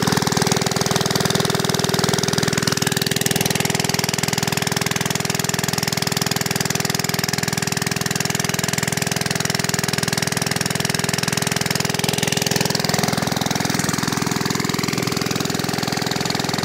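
Diesel engine driving a water pump, running at a steady speed, with water gushing from the pump's outlet pipe and splashing onto the ground.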